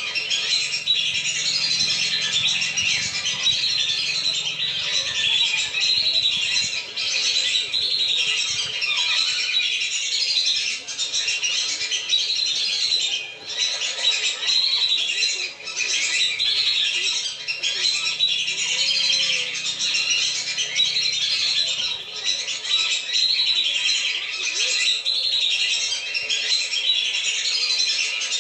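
A flock of whistling ducks (belibis) calling without a break, many high whistles overlapping into a dense chatter: a lure-call recording meant to bring the birds down.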